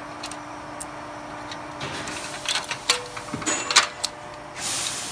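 Irregular metallic clicks and clinks of hand tools working the nut off an appliance dolly's ratchet handle, loudest about three and a half seconds in, with a short scrape near the end.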